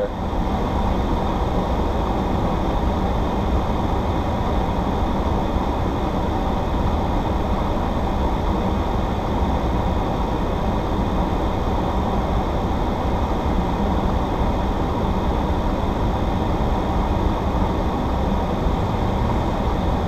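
Steady in-cabin hum of a supercharged Audi S4's V6 idling with the car standing still.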